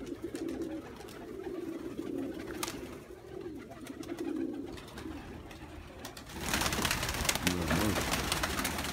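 Domestic pigeons cooing repeatedly. About six seconds in, a loud burst of wing-flapping breaks out as several birds take off together.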